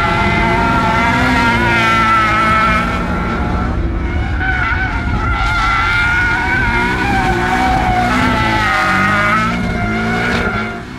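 Porsche 718 Cayman drifting: the engine revs up and down again and again while the tyres squeal in long, wavering tones. The sound fades away near the end.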